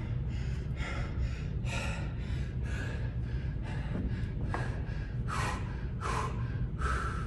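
A man panting hard from exertion mid-workout, quick heavy breaths in and out about two to three a second.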